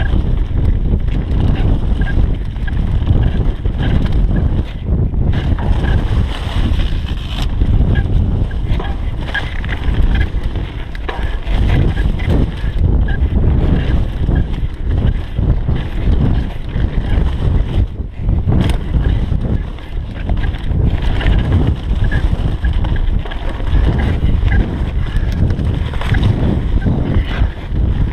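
Mountain bike descending fast over a rough, leaf-covered dirt trail: wind buffeting the camera microphone over a heavy low rumble, with constant rattling and knocking from the tyres and frame over roots and rocks.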